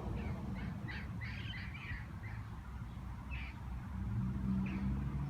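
Birds chirping, short high calls in scattered clusters, over a steady low rumble.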